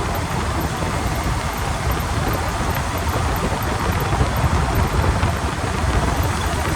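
Steady low road and driveline rumble from under a moving vehicle, picked up at the transmission skid plate. No distinct whine stands out: the mystery noise that the owner suspects in the rear differential cannot be made out from this spot.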